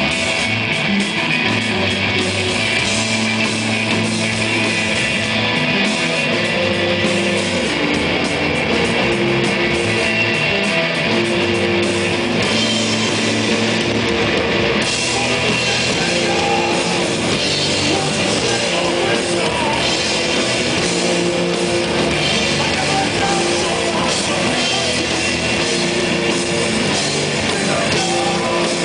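A live rock band playing an instrumental desert-rock piece, with electric guitar over a steady drum kit. The low end fills out about halfway through.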